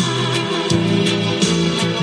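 Music with a bass line and a steady beat playing loudly through a powered PA speaker box, its woofer now sounding alongside the horn after its bad wire connection was soldered.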